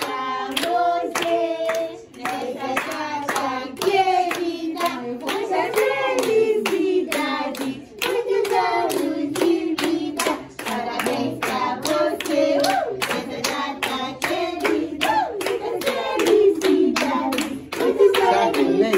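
A few people singing together with steady hand-clapping in time, the way a birthday song is sung over the cake. The singing pauses briefly twice, about two and eight seconds in.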